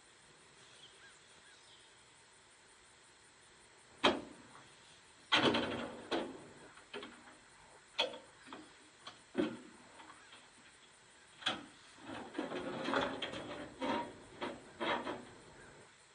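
Irregular knocks and clatter: a dozen or so short sharp impacts, starting about four seconds in and bunching together near the end, with no engine running.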